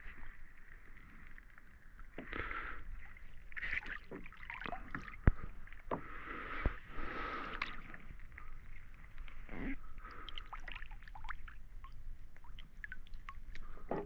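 Water sloshing and splashing in uneven surges, with small ticks and knocks throughout. One sharp knock about five seconds in is the loudest sound, and a smaller one follows a little over a second later.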